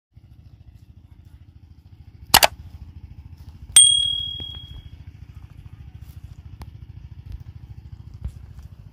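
Subscribe-button sound effects: a quick double mouse click about two seconds in, then a bell ding a second later that rings out briefly, over a steady low rumble.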